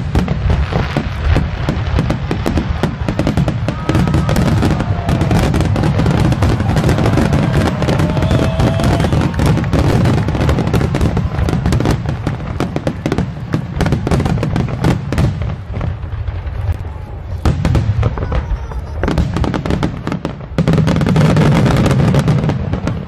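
Aerial firework shells bursting in a rapid, overlapping barrage: a continuous run of bangs and crackling, with a loud surge about three-quarters of the way through.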